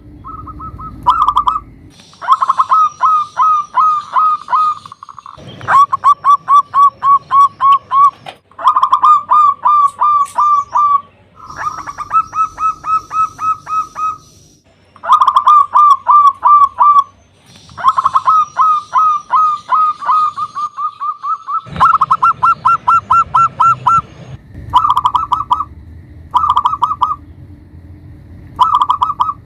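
Zebra dove (perkutut) cooing in repeated bouts of fast, rapidly pulsed coos, each bout a second or few long with short pauses between.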